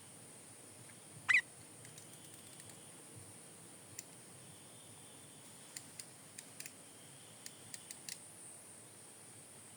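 Sooty-headed bulbul giving a single short call about a second in, then several faint sharp ticks in the second half, over a steady high-pitched hiss.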